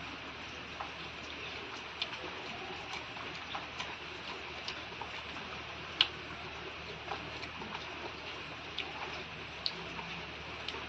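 Eating sounds: a person chewing, with small irregular mouth clicks and smacks over a steady background hiss, and one louder click about six seconds in.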